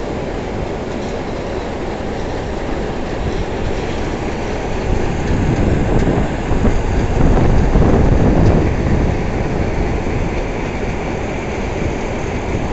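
Larsen & Toubro coal stacker-reclaimer and its belt conveyor running: a steady mechanical rumble that grows louder for a few seconds midway.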